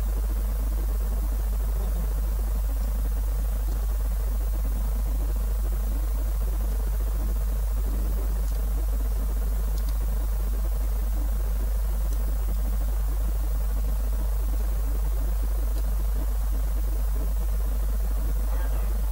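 A steady low hum with an even hiss over it, unchanging.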